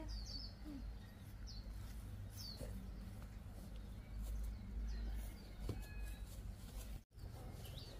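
A few short, high, falling bird chirps over a steady low rumble. The sound cuts out for a moment about seven seconds in.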